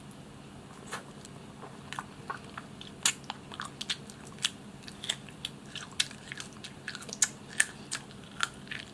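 Close-miked mouth eating barbecued chicken: biting and chewing as a run of short, sharp, wet clicks. The clicks are sparse at first and come thick and fast from about three seconds in.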